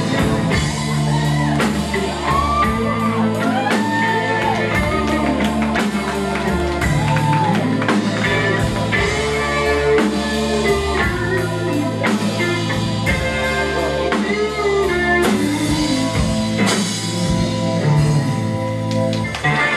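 Live rock band playing, with a drum kit keeping a steady beat under electric guitar.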